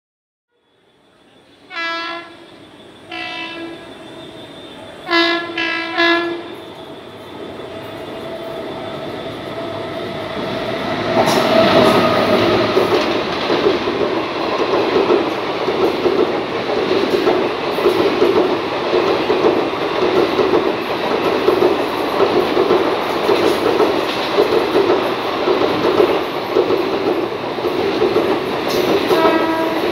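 An approaching Indian Railways WAG-9 electric locomotive sounds four short horn blasts. The passenger train then rushes past at speed, its coaches giving a loud rumble with a rhythmic clatter of wheels on rail joints. Another short horn blast comes near the end.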